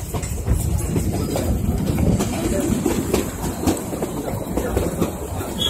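Nilgiri Mountain Railway passenger train running along the track: a steady rumble from the coach, with irregular wheel clicks over the rail joints, heard through an open coach window.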